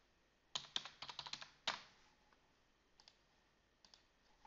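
Computer keyboard typing: a quick run of about ten keystrokes from about half a second in, then a couple of single clicks near the end.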